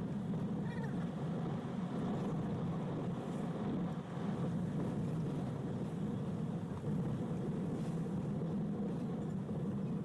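Steady engine and road noise heard inside the cabin of a Toyota HiAce van on the move, a continuous low hum with no distinct events.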